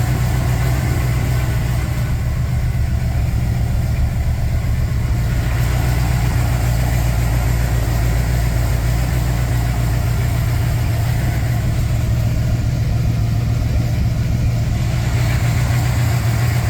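A 400 cubic-inch V8 in a Z28 idling steadily with rod knock, a worn connecting-rod bearing knocking in time with the crankshaft.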